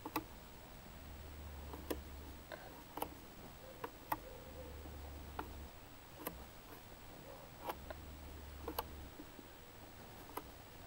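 Faint, irregular clicking from the gravity engine's ratchet and freewheel drive as the propeller shaft turns slowly, about a dozen clicks. Under it, a low hum from the electric trolling motors that drive the float tanks comes on and cuts off every few seconds as they cycle.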